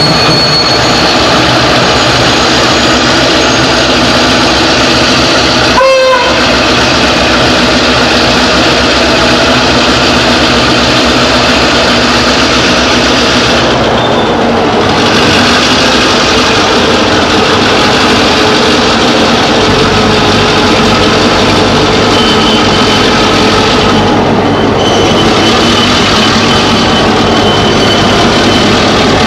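Victorian Railways T class diesel-electric locomotives passing close by at the head of a grain train, engines running loud and steady. The low engine note changes about halfway through as the next locomotive goes past.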